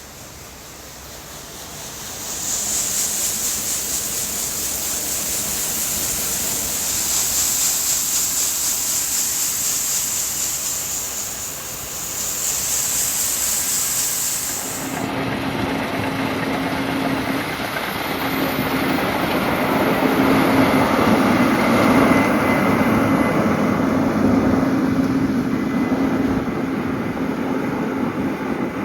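Tillage tractor running while pulling a deep ripper through the field. A steady hiss fills the first half, then the sound changes abruptly to a steady engine drone with a low, even hum.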